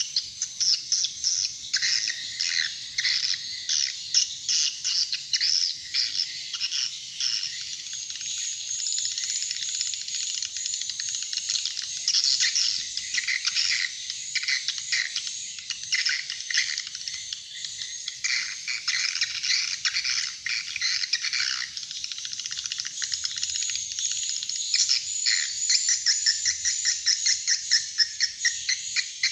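Swiftlet twittering: dense, continuous, high-pitched chirps and trills, turning to a fast, even run of chirps near the end. It is the kind of call played to lure swiftlets to a nesting house.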